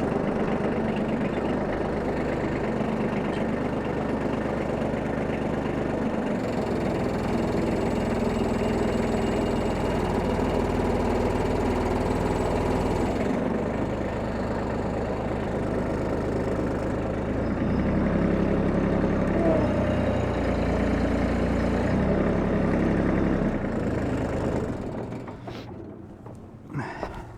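Kubota B2620 tractor's three-cylinder diesel engine running, its speed stepping up and down several times while it is torque-tested against the parking brake after a welded repair to the pilot shaft. The engine sound dies away near the end.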